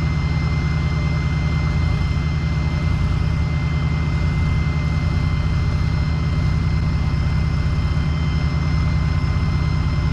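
Heavy engine running steadily at idle, deep and unchanging, with a faint steady high whine over it.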